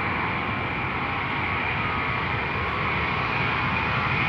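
KC-10 Extender's three General Electric CF6 turbofan engines running at takeoff thrust during the takeoff roll: steady jet noise with a high whine.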